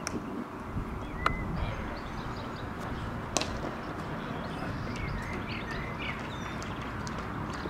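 Outdoor ambience with small birds chirping over a steady low rumble, broken by two sharp knocks, one about a second in and one about three and a half seconds in.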